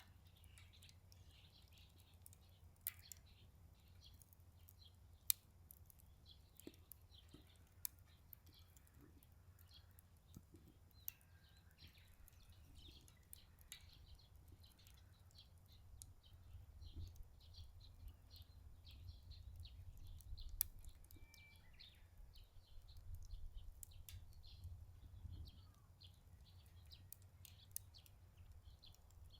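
Wood fire crackling in a Solo Stove Ranger fire pit, with scattered sharp pops, the loudest a little after five seconds and again near twenty. Small birds chirp faintly throughout, over a low wind rumble that swells in the middle.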